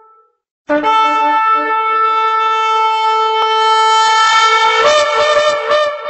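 Shofar blown: the tail of one blast fades away, then after a short gap a long, loud, steady blast begins, stepping up to a higher, rougher, wavering note near the end.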